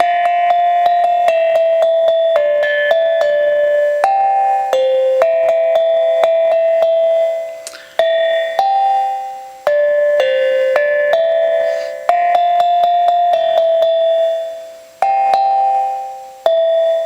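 Slit drum struck with mallets, playing a simple melody one note at a time, each note ringing briefly. The tune goes in short phrases, with a few pauses where the last note dies away.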